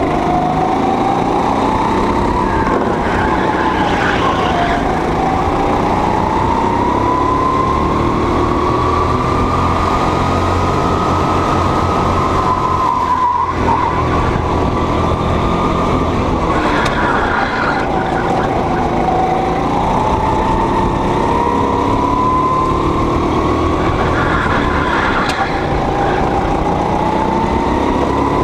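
Go-kart engine running at speed, heard from on board the kart. Its pitch climbs and falls continuously as the kart accelerates and slows through the corners, with a momentary break about halfway through.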